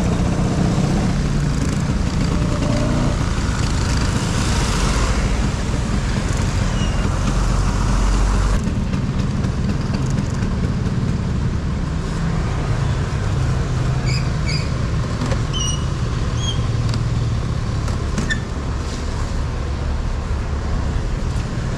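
Steady engine and road-traffic noise from riding a classic two-stroke Vespa Super scooter. The sound changes abruptly about eight and a half seconds in. A few short high chirps come between about 14 and 18 seconds.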